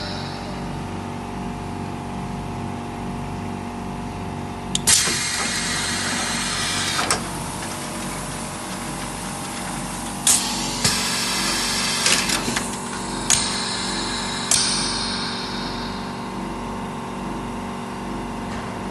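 Textile roll packing machine running, its electric motors humming steadily, with several sudden short hissing bursts between about five and fifteen seconds in.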